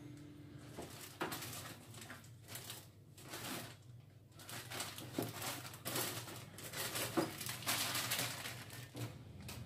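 Plastic zip-lock bags of vegetables crinkling and rustling as they are handled and pulled out of a refrigerator, with small irregular knocks and clicks of items and containers being moved.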